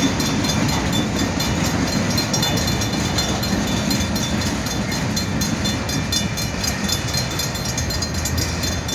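Freight train cars rolling slowly past, a steady rumble and rattle of wheels on the rails.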